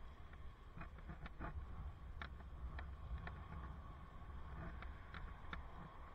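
Wind rumbling on a helmet camera's microphone while riding a bicycle, with about a dozen light clicks at irregular intervals.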